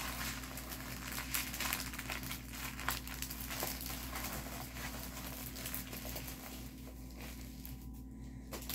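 Packaging crinkling and rustling as it is handled and opened. The crackle is busiest in the first few seconds and thins out near the end, over a low steady hum.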